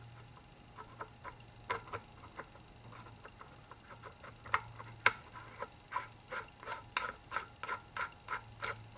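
Light metallic clicks from hand tools and parts being worked on a motorcycle front wheel hub during reassembly. They come singly at first, then settle into a steady run of about three clicks a second in the second half.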